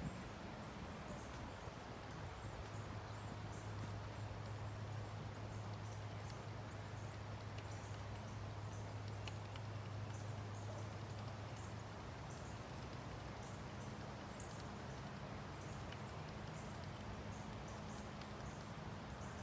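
Car jack being worked to force a fence T-post up out of the ground: faint repeated clicks and knocks over a steady low hum.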